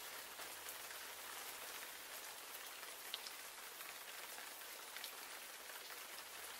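Steady rain falling, faint, as an even hiss with the odd single drop ticking out above it.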